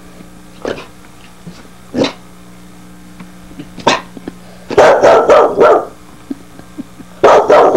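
Wheaten terrier puppy barking: a few single sharp barks a second or two apart, then a loud volley of quick barks about halfway through and another near the end.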